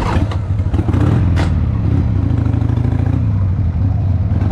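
Cruiser motorcycle engine running at low speed, a low pulsing rumble heard from the rider's seat, with two short sharp clacks about a second and a half apart near the start.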